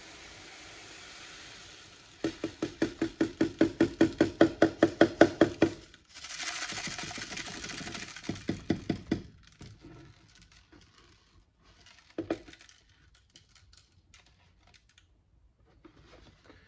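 Desiccant beads pouring from a plastic jug into a clear plastic filter bowl: first a steady hiss of beads. Then comes a fast rhythmic rattle of about six or seven pulses a second as the jug is shaken, and another stretch of steady pouring. Near the end there are only scattered clicks of a few last beads.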